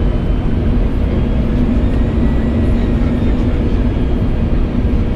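Steady cabin roar of an Airbus A321 on approach to land: its CFM56 turbofan engines and the airflow over the airframe make an even rumble with a steady low hum running through it.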